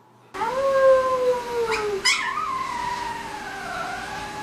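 Husky-type dog howling: a long howl that slides slowly down in pitch, then a second long howl about halfway through whose pitch wavers, dipping and rising again.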